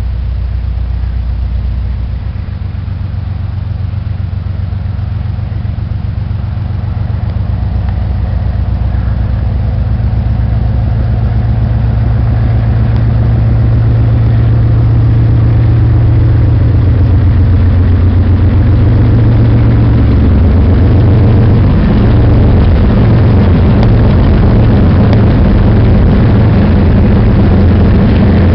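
BNSF diesel-electric freight locomotives pulling a train of empty spine cars, their low engine drone growing louder as they approach and pass close by.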